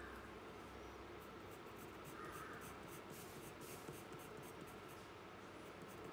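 Pencil scratching on paper in quick shading and hatching strokes, faint.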